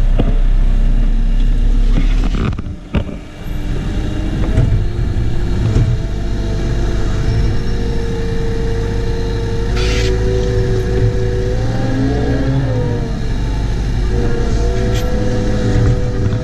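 Caterpillar 914G wheel loader's diesel engine running as the machine drives, heard from inside the cab, with a steady whine that bends down and back up in pitch about twelve seconds in. The sound drops away briefly about three seconds in.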